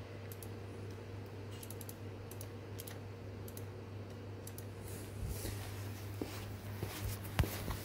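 Light finger taps and clicks entering a login code on a touchscreen clock-in terminal's number keypad, over a steady low electrical hum. A few soft knocks follow in the last few seconds.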